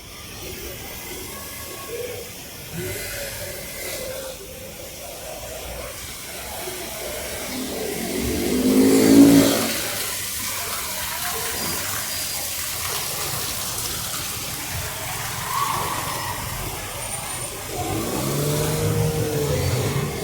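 Street traffic: a motor vehicle's engine swells and passes loudly about nine seconds in, and another engine passes near the end, over a steady background hiss.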